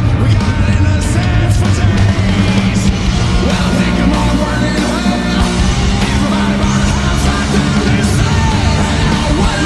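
Slowed-down, reverb-heavy punk rock: distorted guitars and drums with a shouted male vocal.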